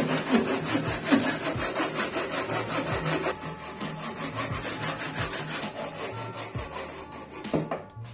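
Japanese ryoba saw, running in a homemade miter guide, cutting a wooden block with steady, rhythmic back-and-forth strokes; the strokes stop briefly near the end.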